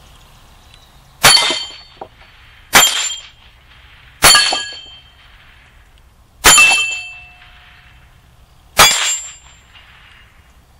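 Five .22 LR rifle shots from a Rossi RS22 semi-automatic, one every one and a half to two seconds, each followed by the short ringing of steel targets being hit.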